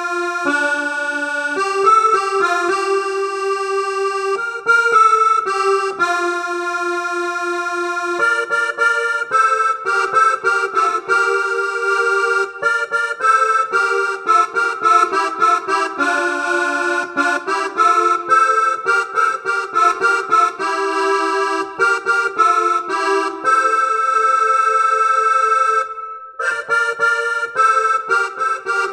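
A Yamaha PSR-S670 arranger keyboard plays a melody over held chords, with a brief break about 26 seconds in.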